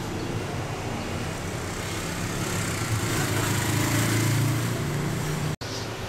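Low rumble of road traffic, swelling as a vehicle passes a few seconds in, then breaking off for an instant near the end.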